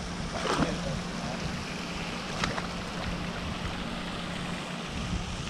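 A bass is lowered back into the water by hand, with a small splash about two and a half seconds in. Under it runs a steady rushing noise and a faint low hum.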